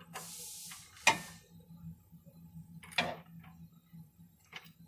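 A few scattered metal clicks and a short scraping hiss from a wrench on the crankshaft bolt as the crank is turned by hand, over a faint steady hum.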